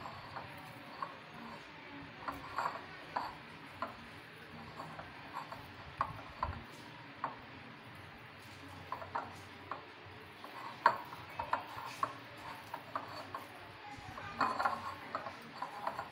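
Gram flour and milk cream being mixed and kneaded by hand in a glass bowl: irregular light clicks and clinks of the glass as the dough is worked, with a couple of sharper knocks about eleven and twelve seconds in.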